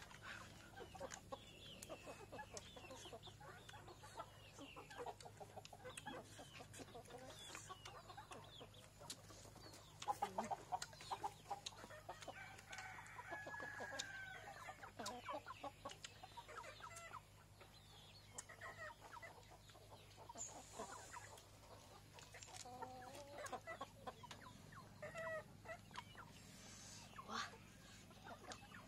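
Domestic chickens clucking faintly and off and on, over soft clicking and smacking sounds of hands tearing and mouths chewing cooked chicken.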